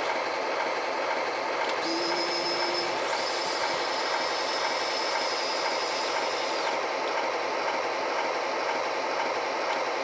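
An RC bulldozer's sound module plays a steady simulated dozer engine with track clatter. A high steady whine joins it from about two seconds in and stops about seven seconds in.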